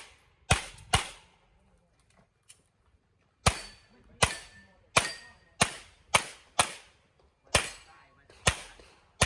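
Handgun shots fired during an IPSC practical-shooting course of fire, each a sharp crack with a short echo. There are two quick shots, a pause of about two and a half seconds, then a string of about eight more shots spaced well under a second apart.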